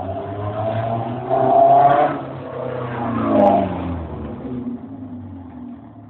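1986 Volkswagen Gol 1.6 engine breathing through a 4-into-1 header exhaust, revved twice. The first rev is held for under a second about a second and a half in. The second, shorter one falls away about three and a half seconds in, then the engine settles back down toward idle.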